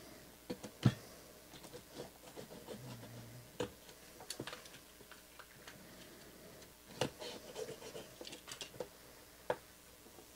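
Hands opening a cardboard trading-card box: scratching and rubbing on cardboard with scattered clicks and taps. The loudest is a sharp click about a second in.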